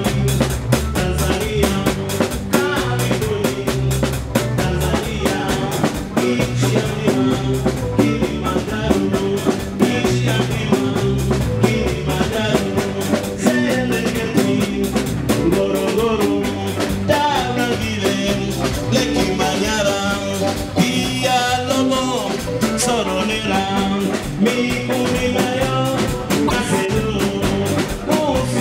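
Live band playing an upbeat song on electric guitar over a steady drum beat.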